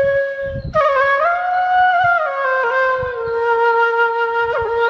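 Background music: a flute playing a slow melody in long held notes.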